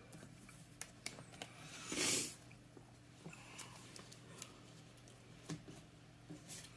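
Game cards being handled on a table: faint scattered taps and slides, with one longer sliding swish about two seconds in.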